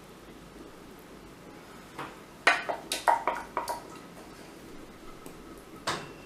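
Wooden spatula knocking and clicking against a glass baking dish while spreading a thick cream over bread: a quick cluster of knocks about two and a half seconds in, and one more near the end.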